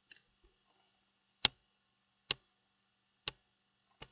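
Computer mouse button clicking: a faint click at the start, then four sharp single clicks about a second apart, the first of them the loudest.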